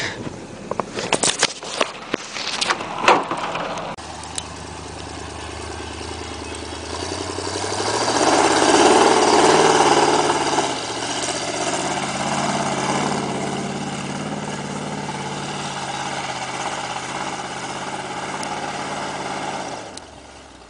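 A few sharp knocks and clicks, then the 1977 Ford F-150 4x4's engine comes in about four seconds in, rises in pitch under throttle and is loudest a few seconds later as the truck pushes up through deep snow, then pulls at a steadier pitch until it drops away near the end.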